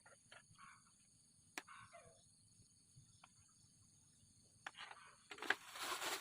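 Insects droning steadily at a high pitch, with a few faint short animal calls in the first two seconds and scattered light clicks. A louder burst of rustling noise comes near the end.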